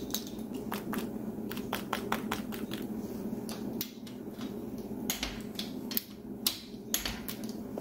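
Torque wrench ratcheting and clicking on the main bearing cap bolts of a Mazda 1.8 BP engine block as they are torqued down: an irregular run of sharp metallic clicks over a steady low background hum.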